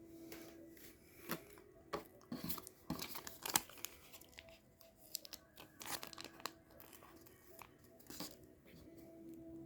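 Plastic Lego Technic parts being handled and snapped together: irregular sharp clicks and crinkly rustling, busiest in the middle, over faint background music.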